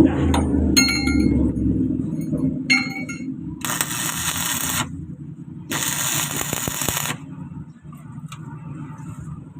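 Metal clinking twice with a ringing tone, then two bursts of electric arc-welding crackle, each about a second long, over a steady low hum.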